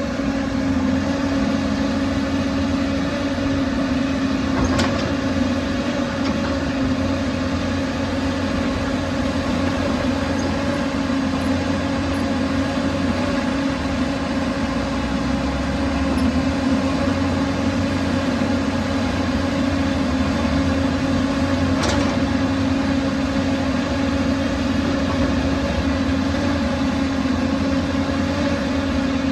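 John Deere 200D LC excavator's diesel engine running steadily at an even, unchanging speed, with a constant hum. Two brief clicks come through, about five seconds in and again near twenty-two seconds.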